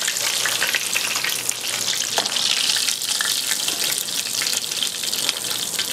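Breaded chicken cutlet frying in hot olive oil in a high-sided stainless steel pan: a steady sizzling hiss with scattered small crackles.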